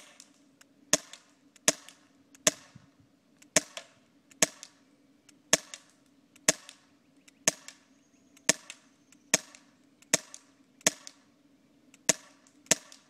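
Colt Defender 1911 CO2 BB pistol firing about fifteen sharp shots in steady succession, roughly one a second, emptying its magazine.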